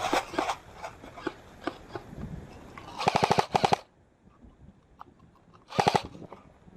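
Airsoft guns firing: scattered single shots, then a rapid full-auto burst of about ten shots about three seconds in, and a shorter burst near the end.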